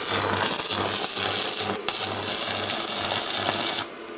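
Stick-electrode arc welding with a Mächtz MWM-355 TB welding inverter in its normal (non-turbo) mode. The arc makes a steady crackling hiss with a low buzz underneath, running evenly without burning through, until it is broken near the end.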